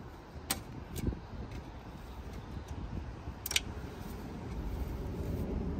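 Faint handling noise of a gloved hand fishing a dropped self-tapping screw out of the bottom of a metal electrical panel box, with a few sharp clicks of metal on metal; the loudest click, a short rattle, comes about three and a half seconds in. A steady low rumble sits underneath.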